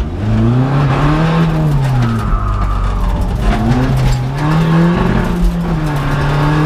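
Seat Ibiza TDI rally car's turbodiesel engine heard from inside the cabin, revving hard. Its pitch rises, drops back, then climbs again and holds as the car is driven through the gears.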